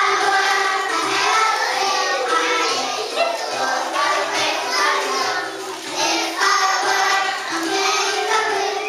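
A group of young children singing a song together in unison, over backing music.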